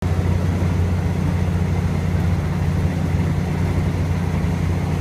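Steady low rumble of a passenger train in motion, heard from inside the carriage.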